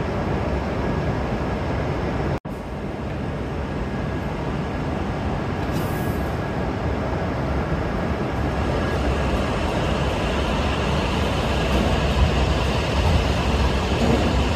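Shinkansen train running, a steady rumbling rush of noise that builds slightly toward the end. The sound cuts out for an instant about two seconds in.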